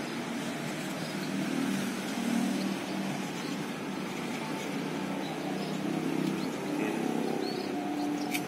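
Steady low drone of a running engine, like nearby vehicle traffic, with a few faint bird chirps and one sharp click near the end.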